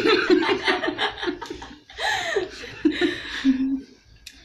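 A woman laughing, a quick run of repeated ha-ha pulses for about a second and a half, then more laughing after a short break.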